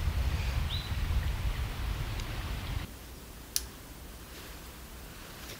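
Wind buffeting the microphone with a rumble and hiss, and a brief rising chirp about a second in. The rumble stops suddenly about three seconds in, leaving quiet background with one sharp click.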